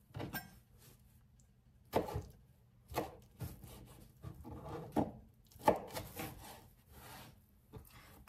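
Knife chopping on a cutting board: a string of short, irregular strikes about half a second to a second apart.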